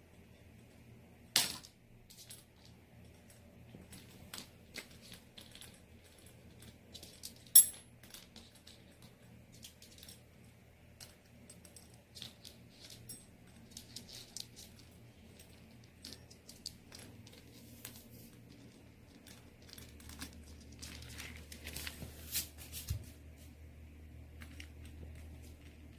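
Chopsticks clicking and knocking as a sun conure plays with them: scattered light clicks, two sharp louder knocks several seconds apart, and a short flurry of rattling near the end.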